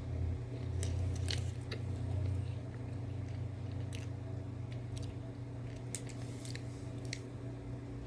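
A person chewing a soft marshmallow candy with a filling, with a scattering of small clicks, over a steady low hum.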